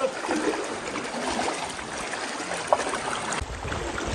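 Water swishing and splashing around legs wading through a shallow river, over the river's steady running. A low rumble comes in near the end.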